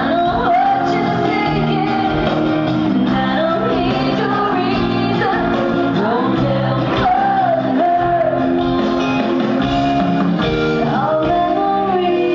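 A rock band playing live, a woman singing lead over electric guitar, bass and drums, heard from the audience in a large arena.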